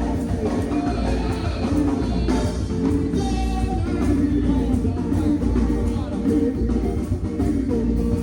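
Music with a singing voice over drums, bass and tambourine, a steady beat.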